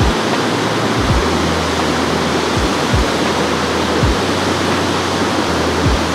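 Water pouring over a dam spillway, a loud steady rush, broken by a few short low thumps.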